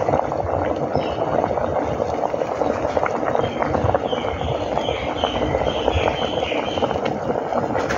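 Water boiling in a steamer pot: a steady, dense bubbling crackle.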